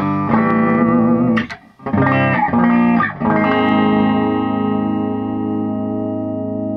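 Electric guitar played through a freshly recapped Bogner Shiva tube guitar amplifier: a few strummed chords with a short break about a second and a half in, then a final chord left ringing for over three seconds before it is cut off right at the end. The amp is working again after its filter capacitor replacement.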